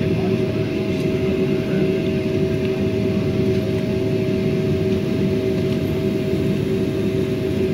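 Cabin noise inside a Boeing 767-400ER taxiing: a steady rumble from the jet engines at idle with a constant hum.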